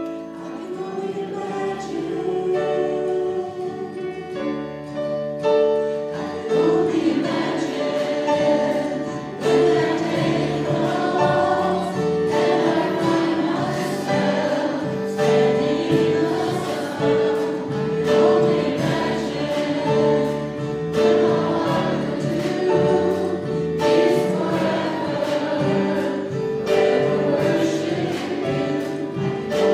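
A group of voices singing a slow worship song with keyboard accompaniment.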